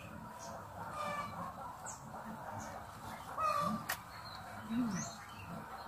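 Chickens clucking in short repeated calls, with higher bird chirps and one sharp click about four seconds in.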